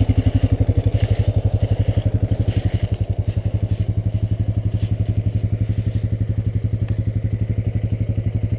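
Honda Rancher 420 ATV's single-cylinder four-stroke engine idling steadily, with an even, quick beat.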